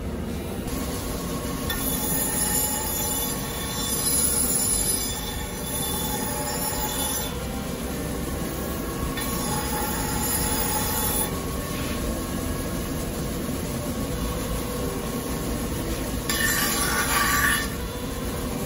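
Large rotating grinding wheel running steadily, with a steel knife spine pressed against it; three times the sound rises into a high-pitched grind as the blade is worked on the wheel.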